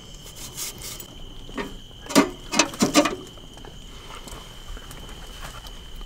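A few short metal clinks and scrapes, clustered about two to three seconds in, as the pizza peel is drawn out and the metal door is set on the mouth of the small pellet pizza oven. A steady, high insect drone runs underneath.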